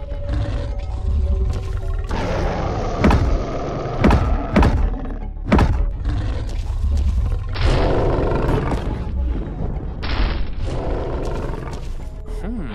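Cartoon fight sound effects over background music: several heavy thuds and booms land about three to six seconds in, each one a short sharp hit.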